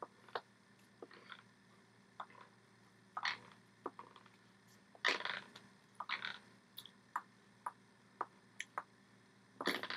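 Irregular, faint taps, smacks and brushing sounds of hands striking each other and the body while signing in American Sign Language, the loudest about five seconds in and just before the end.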